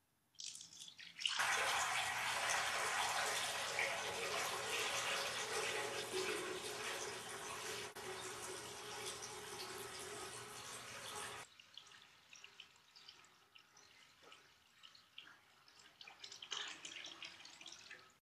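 Water poured from a pitcher into a wash basin: a steady pour for about ten seconds, then quieter trickling and splashing that ends abruptly near the end.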